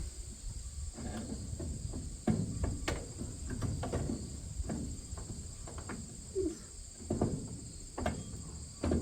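Irregular metal clunks and knocks as a heavy steel stalk roll is worked up into a corn head row unit by hand. A steady high trill of crickets runs underneath.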